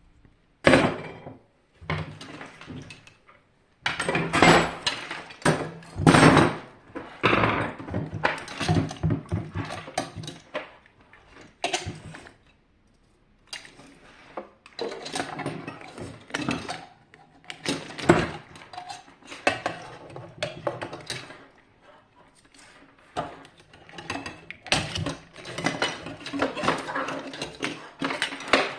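Metal parts and tools clinking and clattering in many irregular knocks while a hot-water heater is being taken apart, with a couple of short pauses.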